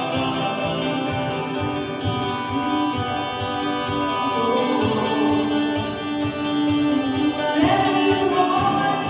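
Music: singing with guitar accompaniment, held notes that rise in pitch near the end.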